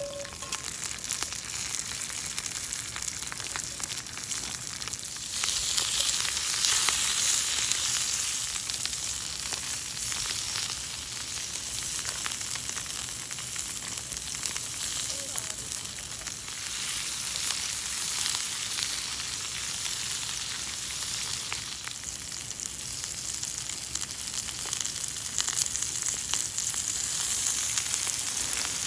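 Food frying in hot oil in a pan, a steady sizzle with constant fine crackling. It grows louder about five seconds in, and again near the end.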